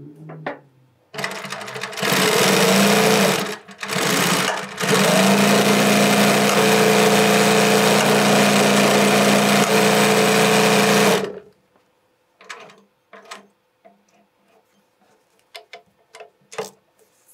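Consew 226 industrial walking-foot sewing machine test-stitching denim. It starts a little after a second in and runs steadily at speed, with two brief pauses in the first few seconds, then stops sharply about eleven seconds in. A few light clicks and taps follow.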